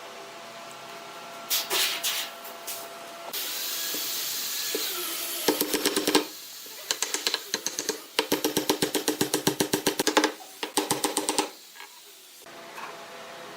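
A woodworking tool over background music: a steady hiss for under two seconds, then several runs of rapid even ticking, about ten a second, each lasting one to two seconds.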